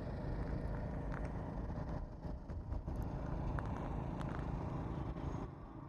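Outdoor rumble of a light wind buffeting the microphone, with a few faint ticks.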